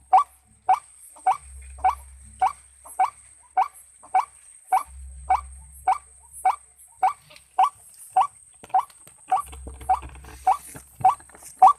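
White-breasted waterhen (ruak-ruak) call repeated over and over at an even pace, about one and a half short, sharp rising notes a second. It is a lure call used to draw waterhens into a trap.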